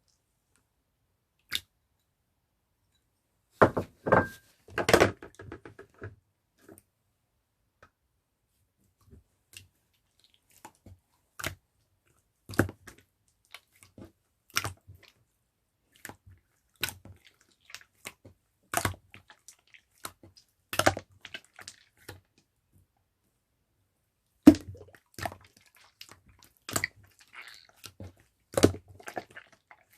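Short clicks and knocks at irregular intervals in a small room, a quick cluster about four seconds in, then single knocks about every two seconds, with dead silence between them.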